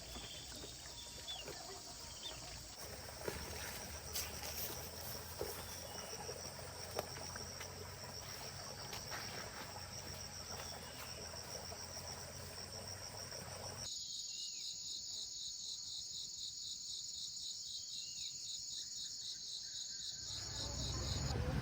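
Insects chirping steadily in a high, continuous trill. About two-thirds of the way through, the sound switches abruptly to a louder, rapidly pulsing insect chorus, and a low rumble builds near the end.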